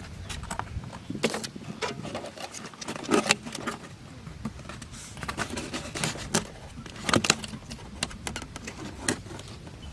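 Irregular light clicks and knocks at uneven intervals, like objects being handled, with louder knocks about three seconds in and about seven seconds in.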